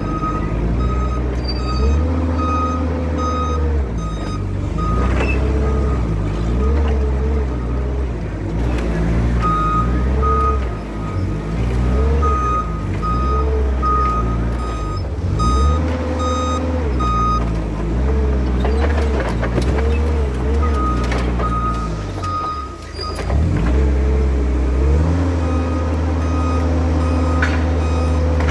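Forklift at work: its motor hum repeatedly rises and falls in pitch as it moves and lifts. In several stretches a backup alarm beeps at about two beeps a second, the forklift's reversing alarm.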